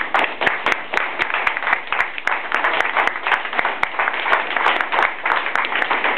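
A group of people clapping and applauding: many dense, sharp claps.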